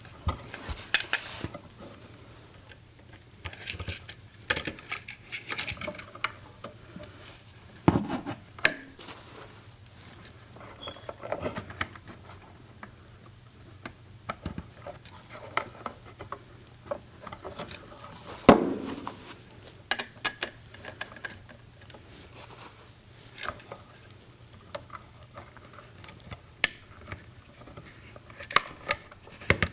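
Stripped copper wire ends being worked into the terminals of a new Leviton USB wall outlet: irregular small clicks, taps and scrapes of wire against the outlet as they go in with some difficulty, with one louder knock a little past the middle.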